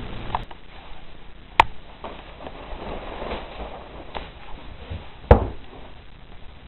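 Two sharp knocks, one about a second and a half in and a louder one about five seconds in, with faint rustling between them.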